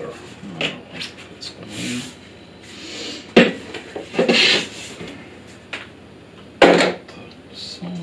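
Rigid plastic vacuum pipes being handled and a cardboard box being rummaged through: rustling and scraping with scattered clicks. Two sharp knocks, about three and a half seconds in and nearly seven seconds in, are the loudest sounds.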